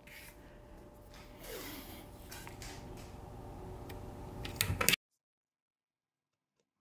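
Blue painter's tape being pulled from the roll and pressed onto a lamp globe: faint rustling and handling with a few sharp clicks near the end. The sound cuts out abruptly about five seconds in, leaving dead silence.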